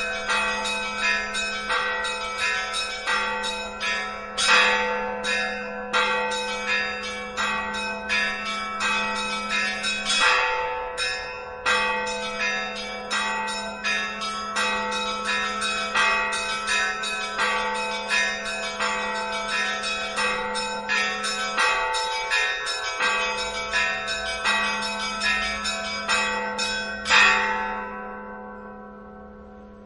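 A peal of church bells ringing, a quick steady run of strikes at about two a second. The peal stops near the end, and the last loud strike rings away.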